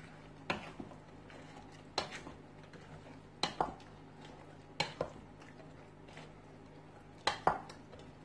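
Wooden spoon stirring a chunky mixture of diced potatoes, minced meat and egg in a stainless steel bowl. It knocks against the bowl's side in sharp clicks, mostly in pairs, about five times, with a soft wet squelch between.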